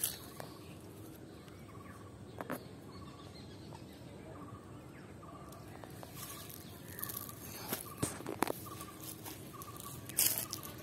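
A bird calling one short note over and over, about twice a second, with a few brief knocks or rustles along the way.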